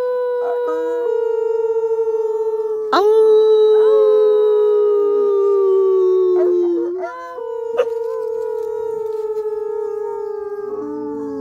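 Dogs howling: long drawn-out howls, each held for several seconds and sinking slowly in pitch, two voices overlapping at first, with a new howl starting about three seconds in and another about halfway through.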